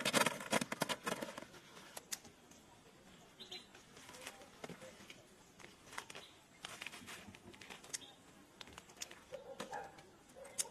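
Freshly cut kumquats dropping into a woven bamboo basket in a quick rattle of small knocks, followed by the rustle of leafy kumquat branches and the sharp snips of pruning shears as more fruit is cut.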